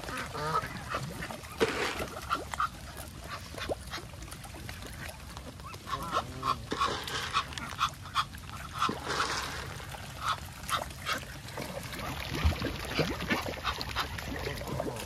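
Geese and ducks calling: many short honks and quacks, one after another.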